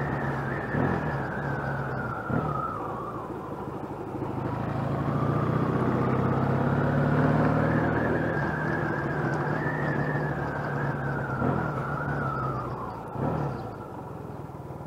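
Motorcycle engine and exhaust running while the bike is ridden, heard from the rider's seat. The engine note dips, climbs and grows louder from about four seconds in, then falls away near the end.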